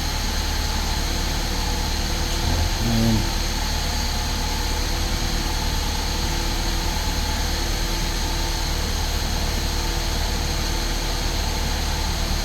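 Saab 9-3 Turbo engine idling steadily. The car has a slight misfire, which the scan tool's miss counter puts on cylinder number three.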